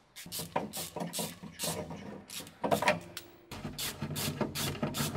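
Socket ratchet on a long extension loosening the bolts of the transmission oil pan, a fast run of clicking strokes with a short pause about three seconds in.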